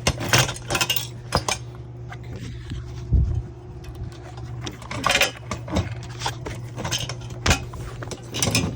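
Irregular metallic clinks, rattles and knocks of bike parts as the rear wheel of a folding electric bike is worked out of the frame, with a duller thud about three seconds in.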